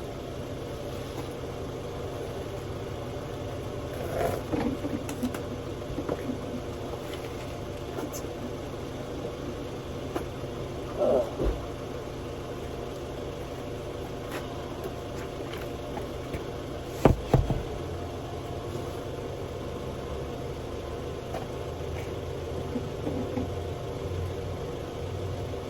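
Steady low mechanical hum, like an engine idling, under a few scattered knocks of tire and tool handling, with one sharp thump about seventeen seconds in.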